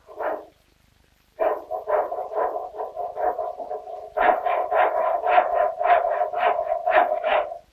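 Hand saw cutting off the protruding oak stave ends of a barrel, a rasping stroke about three times a second with a steady ringing tone from the wood. It starts about a second and a half in and grows louder and sharper about four seconds in.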